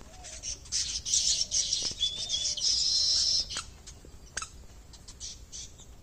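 Baya weavers chattering and chirping, densest in the first half, with a loud buzzy call held for about a second near the middle, then scattered chirps.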